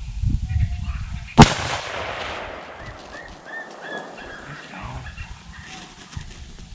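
A single loud gunshot about a second and a half in, with a trailing echo, fired at a coyote. Low wind rumble on the microphone comes before it.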